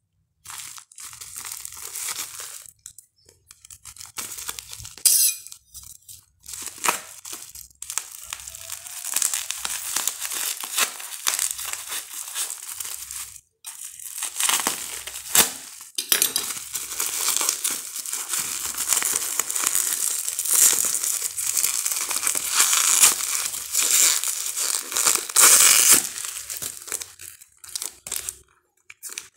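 Plastic shipping wrap and bubble wrap crinkling and crackling as a parcel is handled and torn open by hand, in uneven bouts with a few short pauses.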